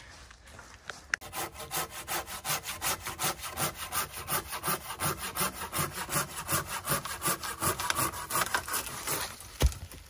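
Curved hand pruning saw cutting through a tree branch, with quick, even back-and-forth strokes, about three or four a second. Near the end comes a single sharp crack, the loudest sound, as the branch gives way.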